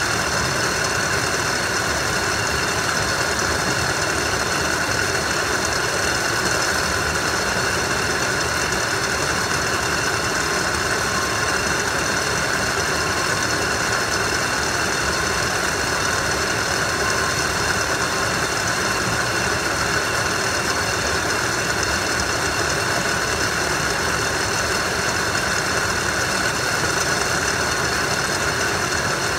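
Warehouse conveyor system running: a steady mechanical drone from powered roller and belt conveyors, with several constant high tones and no distinct knocks.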